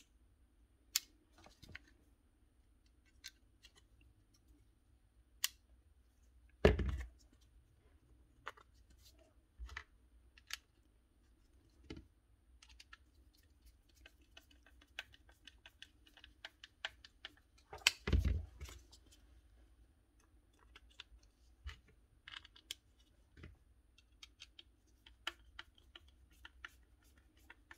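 Scattered small clicks, taps and scrapes of hand work on a Bosch GWS 7-115 angle grinder as its carbon brushes are refitted into the housing, with two louder knocks about 7 and 18 seconds in.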